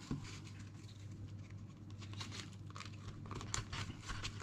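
Faint rustling and crinkling of dry raffia and birch bark being handled as raffia is threaded through the holes of a birch bark container, with a few light ticks.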